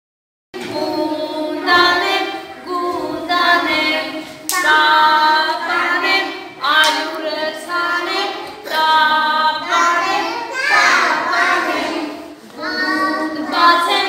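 A group of young children singing a children's song together in Armenian, in phrases with short breaks between them, starting suddenly about half a second in.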